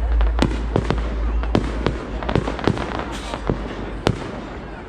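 Fireworks display: a rapid, irregular string of sharp bangs and cracks from bursting aerial shells, about a dozen in under five seconds. A deep rumble under them fades about two seconds in.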